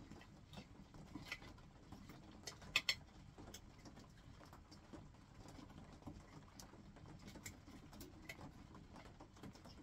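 Faint steady patter of rain on the cabin roof, with scattered light clicks of a knife and fork on a plate; the sharpest is a quick double click nearly three seconds in.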